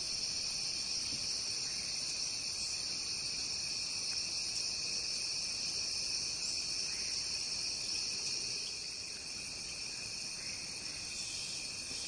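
Rainforest insect chorus: a steady, shrill, high hum in several layered pitches. It becomes slightly quieter about eight and a half seconds in.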